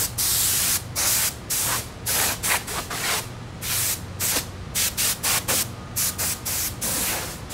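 Can of compressed air (keyboard duster) blowing in many short hissing blasts, roughly two to three a second, with a longer blast at the start. It is clearing sanding dust and spackle residue off a foam model-aircraft wing.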